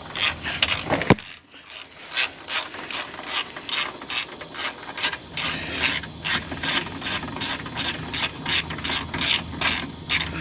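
Ratchet wrench clicking in quick, even strokes, about three to four clicks a second, as a mounting bolt is tightened; the clicking starts about two seconds in after a brief pause.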